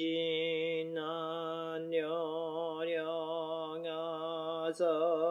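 A Jodo Shinshu Buddhist priest chanting a sutra solo. He holds each syllable for about a second on a nearly steady low pitch, with a short change of syllable roughly every second.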